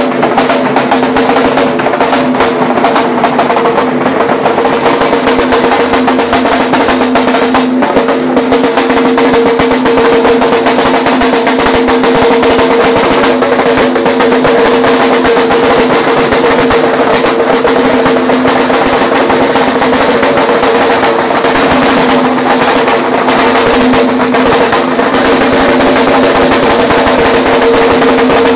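A Lambeg drum beaten with thin canes in a fast, unbroken roll, loud throughout, the strokes running together into a steady hum.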